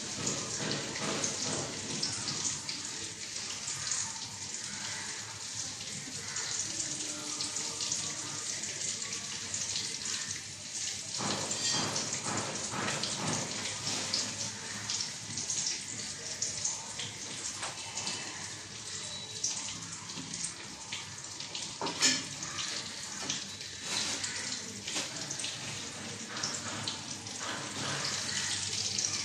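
Eggs frying in hot oil in a kadai: a steady sizzle with constant fine crackling, and one sharp knock about 22 seconds in.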